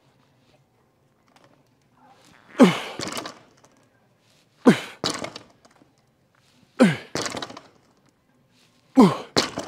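Bumper-plate-loaded barbell touching down on the floor at the bottom of each single-arm deadlift rep: four heavy thuds about two seconds apart, each followed by a quick second knock as the plates settle.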